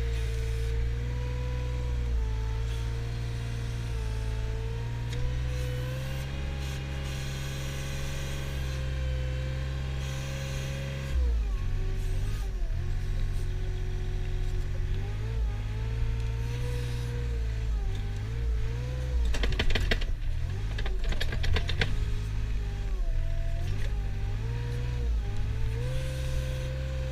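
Compact wheel loader's engine and hydraulics running under load while it pushes and lifts a bucket of grass silage. The engine note steps down and starts wavering about halfway through as the load comes on. There is a burst of rattling clatter a little after that.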